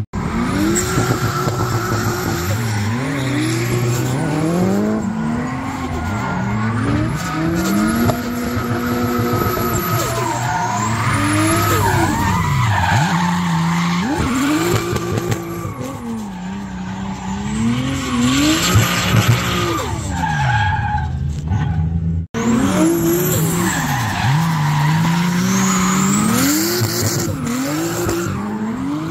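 RB25 straight-six of a Nissan S14 drift car revving up and down over and over as it drifts, with the rear tyres skidding and squealing. The sound breaks off for a moment about two-thirds of the way through, then carries on.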